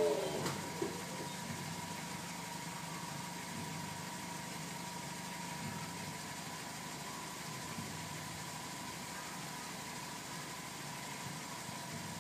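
Daihatsu Copen's small 660 cc turbocharged four-cylinder engine idling steadily: a low, even hum with a thin steady high tone above it.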